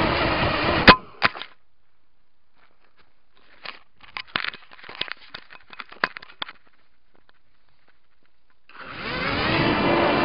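Micro quadcopter's motors buzzing close to the onboard camera, cut off by a sharp knock about a second in, followed by a few seconds of quiet with scattered clicks. The motors spin up again near the end, rising in pitch.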